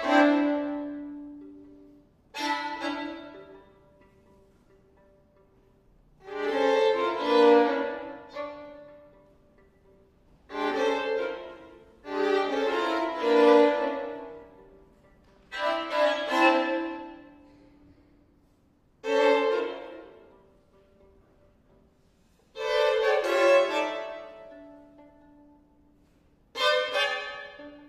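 Violin duo playing a string of short, sharply attacked phrases, about nine of them, each fading away over a second or two before a brief pause and the next entry.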